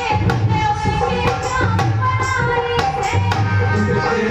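Music: a voice singing a melody over drums.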